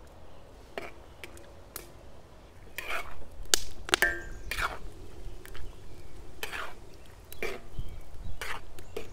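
Slotted metal spatula scraping and knocking against a cast iron wok as chicken karahi is stirred: a string of separate strokes, busiest a few seconds in.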